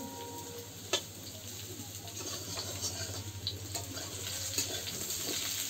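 Potato slices sizzling as they fry in oil in a steel karahi, with a metal spatula scraping and clinking against the pan as they are stirred. One sharp clink about a second in, then lighter scattered scrapes.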